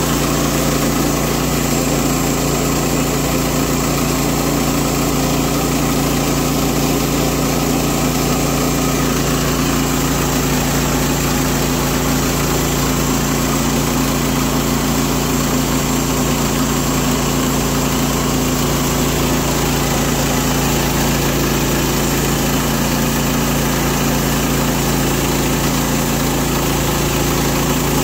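Norwood PM14 portable band sawmill's gas engine running steadily under load as the band blade cuts lengthwise through a pecan cant.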